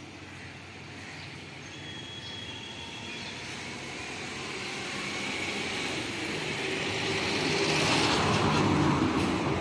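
Noise of a passing vehicle swelling steadily, loudest near the end, with a few faint high whining tones over it.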